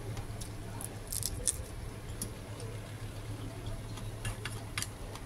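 Faint sounds of eating ramen noodles: soft mouth and squish sounds with a few scattered small clicks, a cluster about a second in and another near the end.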